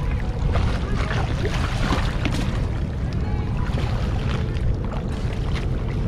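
Shallow river water sloshing and splashing around a wading man's legs and a woven bamboo scoop basket as he sweeps it through the water, in short irregular splashes over a steady low rumble.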